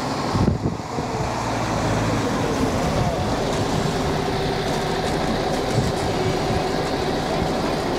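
Wind buffeting the microphone, a steady rumbling rush.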